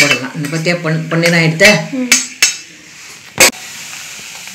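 Steel pan and spoon clinking as ghee-fried cashews and raisins are tipped out, with one loud metal clank about three and a half seconds in. The hot ghee then gives a faint steady sizzle on the rava-sugar powder.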